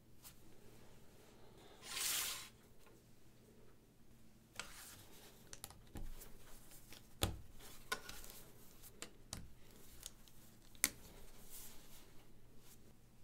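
LEGO plastic plates being handled and pressed together: scattered sharp clicks, a handful over the stretch, with a brief rustle of plastic sliding about two seconds in.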